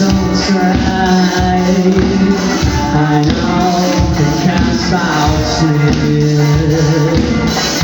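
A rock band playing a song live, with electric guitar, bass and drums, in a passage between sung lines.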